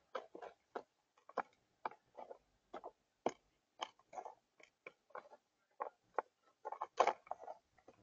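Mourning doves pecking seed off a feeder tray: irregular sharp taps of beaks striking the board, about two or three a second, loudest about seven seconds in.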